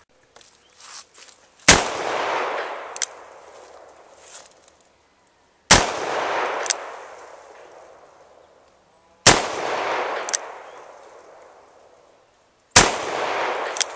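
Smith & Wesson Model 610 10mm revolver with a 6-inch barrel fired four times, about three and a half seconds apart. Each shot is a sharp crack followed by a long rolling echo that fades over about three seconds, with a fainter sharp crack about a second after it.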